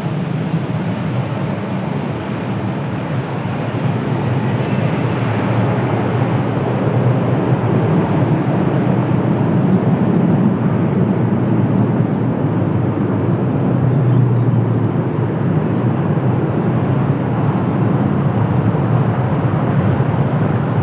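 Jet airliner's engines on approach to land, a steady rushing noise that slowly grows louder.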